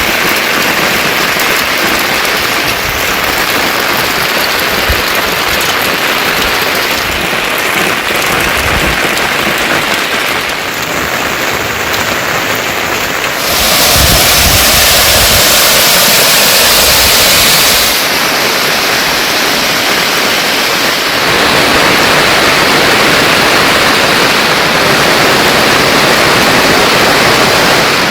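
Heavy monsoon rain falling in a steady hiss. Its sound shifts abruptly a few times, and it is loudest and brightest for about four seconds near the middle.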